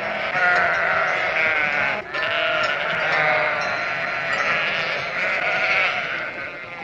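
A flock of farm animals calling at once, many overlapping wavering cries, with a brief lull about two seconds in.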